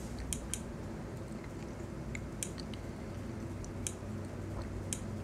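Irregularly spaced short ticks from a live lightning-strike map playing through computer speakers, each tick marking one lightning strike as it is detected, over a low steady hum.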